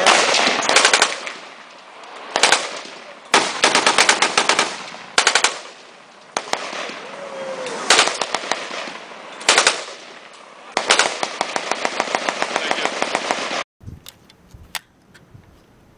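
AKS-74U (5.45×39) firing full-auto: a string of short bursts of rapid shots, then one long burst of nearly three seconds that cuts off abruptly.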